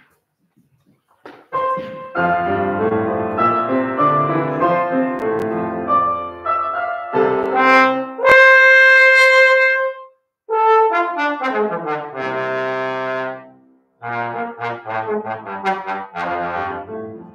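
Solo trombone playing fast virtuosic runs over piano accompaniment, holding one long high note about halfway through before breaking off briefly and resuming with descending runs.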